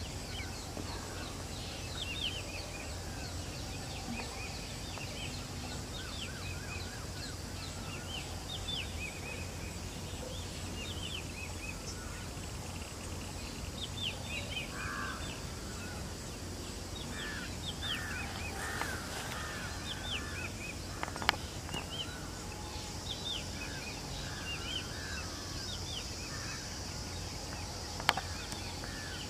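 Birds calling: many short, high chirps that fall quickly in pitch, repeating throughout, with bursts of lower warbling calls around the middle, over a steady low hum. Two sharp clicks stand out, one past the middle and one near the end.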